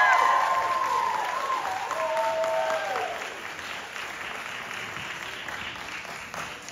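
Audience applauding and cheering, with high voices whooping over the clapping for the first three seconds. The applause then dies down.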